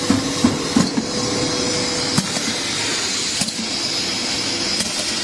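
Steady hiss with a faint hum from a compressed-air-driven piston filling machine, with a few light clicks and knocks in the first second and single ones now and then after.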